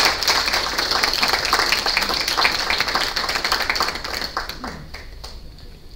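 Audience applauding, a patter of many hands clapping that dies away about three-quarters of the way through.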